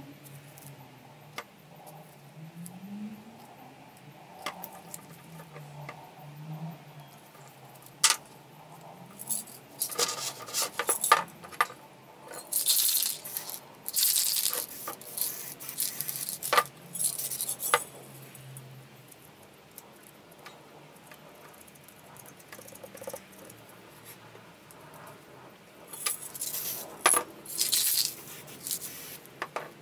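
Aerosol spray paint can hissing in a series of short bursts, mostly in the middle and again twice near the end, with sharp clicks and rattles between them as cans are handled. Faint scratching and ticks come first, from a tool scraping into the paint.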